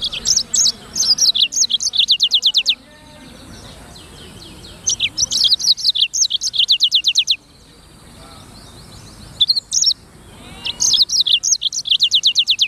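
Black-throated canary (blackthroat) singing in loud, high bouts of about two to three seconds with short pauses between. Each bout is a quick jumble of notes that ends in a fast run of repeated down-slurred notes.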